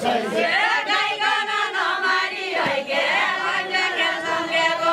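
A group of women singing a Deuda folk song together in unison, several voices holding long drawn-out notes.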